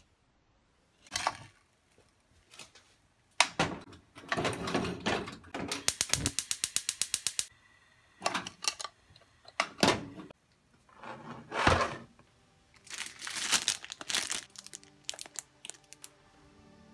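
Knocks and clatters of a cast-iron hot sandwich maker being handled, its hinged plates shut and set down, with a fast even run of sharp clicks, about ten a second, partway through.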